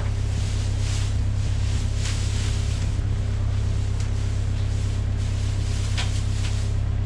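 An engine idling steadily, a low even drone, with a few soft rustles of straw being shifted on top.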